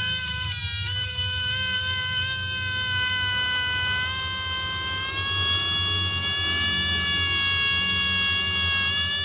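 Small racing DC motor (dinamo) running free on a battery, freshly lubricated, giving a steady high-pitched whine. The pitch dips briefly about half a second in and rises slightly around four to five seconds in.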